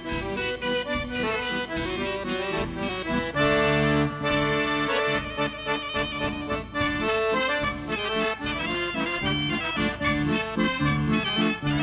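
Lively Polish regional folk dance music led by an accordion, with a quick, steady rhythm. About three and a half seconds in, a chord is held for about a second and a half before the tune runs on.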